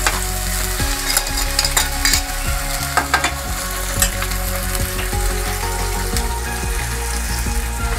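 Ground onion-tomato masala paste sizzling steadily as it fries in oil in a non-stick kadhai, with a few short scrapes and clicks of a metal spatula against the pan.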